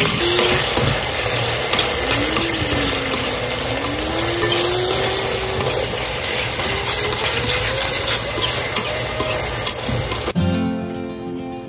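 Food sizzling as it fries in a pan, with the scrape and clicks of a utensil stirring it. The sizzle cuts off suddenly about ten seconds in, and background music starts.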